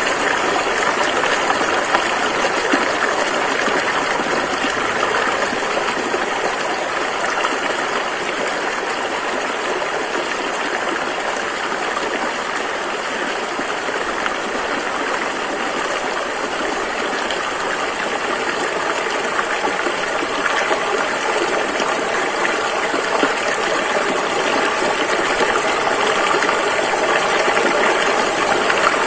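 Rushing river water flowing over rapids in a steady, even rush.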